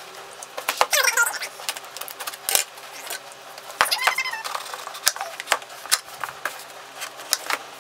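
Scissors snipping and scraping along the packing tape on a cardboard box, with the tape tearing and peeling off in short squeals and irregular clicks and rustles of the cardboard.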